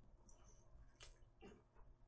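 Soft chewing of a mouthful of powder-coated fried chicken drumstick: a few faint wet mouth clicks.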